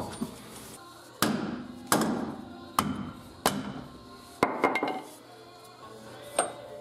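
A hand tool striking metal on the Jeep's underside: five sharp clanks starting about a second in, roughly one every three-quarters of a second, each ringing briefly.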